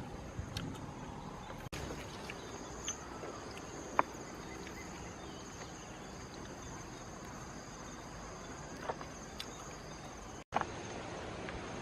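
Insects chirring steadily on a high, even pitch, with a few sharp clicks and taps over it, the loudest about 4 s in. The sound drops out completely for an instant twice.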